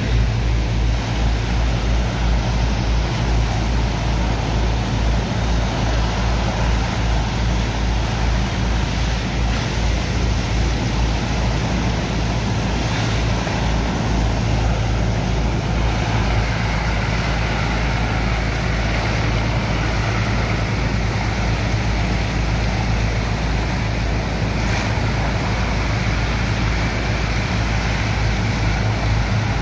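Sand-slurry pumping machinery running steadily with a deep drone, mixed with the rush and splash of water jets washing sand into slurry in a barge hold.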